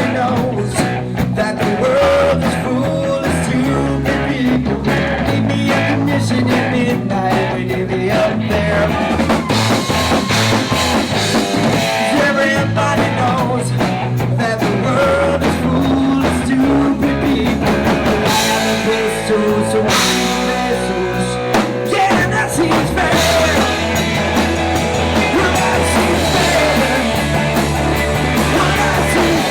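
Rock band playing, with drum kit, electric guitar and a bass line moving in steps.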